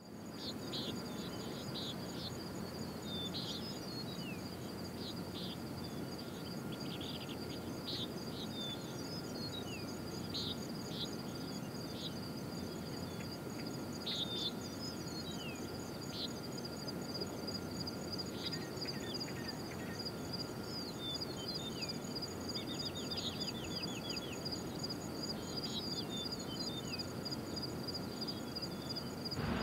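Outdoor dawn ambience: insects trilling in a steady, high, pulsing drone, with birds chirping on and off and one quick run of repeated bird notes a little past the middle, over an even low background rumble.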